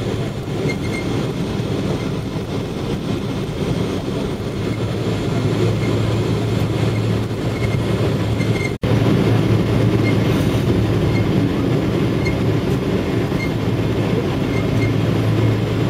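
Airliner cabin noise during the rollout after landing: the steady sound of the jet engines and the aircraft rolling on the runway, with a low hum that strengthens about five seconds in. The sound drops out for an instant a little past the halfway point.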